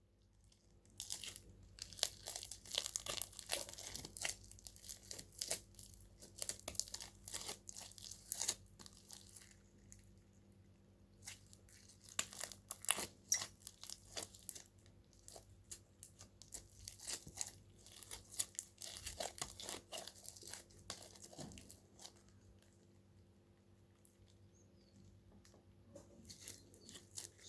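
Homemade slime being squeezed and stretched by hand, giving a fast, irregular run of sticky clicks and crackles. It goes mostly quiet about three-quarters of the way through, with a few more near the end.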